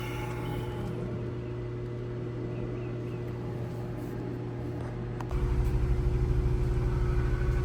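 2017 Ford Transit engine starting about five seconds in, after a steady hum, and running at an even idle with a low, regular pulse. This is the first start on its newly flashed replacement PCM, and it runs smoothly.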